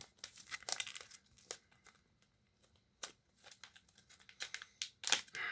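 Foil wrapper of a Yu-Gi-Oh! booster pack crinkling and crackling in the hands as it is worked at to be torn open, in irregular bursts with a short lull in the middle.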